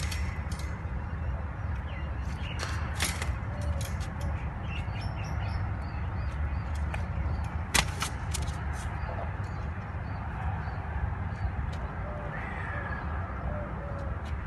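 Steady low outdoor rumble with scattered clicks and knocks, the loudest a sharp knock about eight seconds in, and a few faint bird calls.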